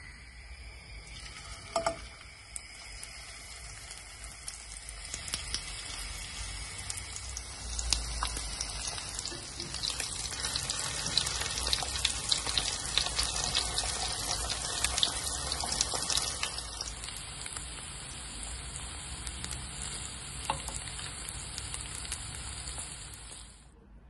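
Chicken breast pieces coated in egg and corn flour frying in oil in a nonstick pan: a steady sizzle full of small crackling pops, with a few sharp clicks. The sizzle stops abruptly near the end.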